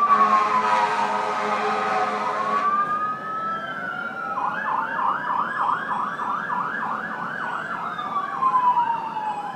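Fire truck siren sounding: a falling wail under a steady blaring horn that cuts off about three seconds in, then the siren wails up, switches to a fast yelp of about three cycles a second, and wails back down near the end.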